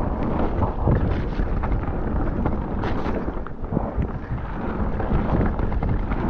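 Wind buffeting a chest-mounted GoPro as a Forbidden Dreadnought mountain bike descends a wet dirt trail, with tyre noise and frequent small knocks and rattles from the bike over the rough ground.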